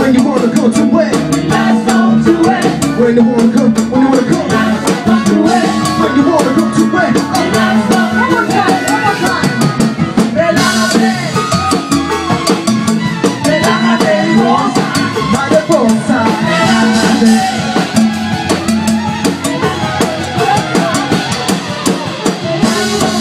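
Live band music with a drum kit, loud and dense, with regular drum hits over a full backing.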